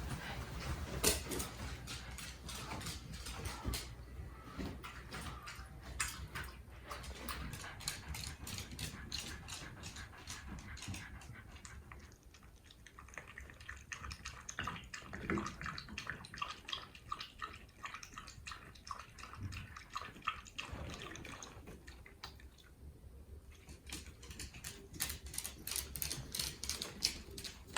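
Pet dogs moving about, their claws and paws making scattered light clicks on the floor, the clicks coming thicker near the end.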